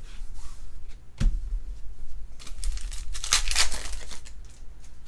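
Foil wrapper of a Panini Prizm baseball card pack crinkling and tearing as the pack is ripped open, with a sharp tap about a second in.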